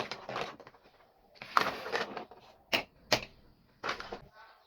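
Small miniature toy kitchen pieces being handled and unpacked: a string of sharp clicks and light clatter in short bursts, with two single loud clicks in the second half.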